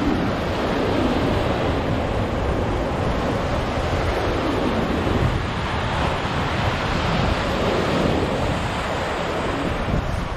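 Ocean surf breaking and washing over dark rocks on a rocky shoreline, a steady rush that swells a little now and then, with wind buffeting the microphone.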